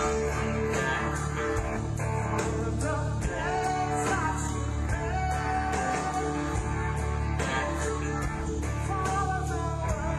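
Live rock band playing, with electric guitar, bass, drums and singing.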